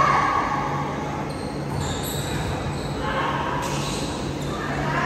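Indoor volleyball rally: ball hits and short high shoe squeaks on the hardwood court, ringing in a large hall, with players' voices calling.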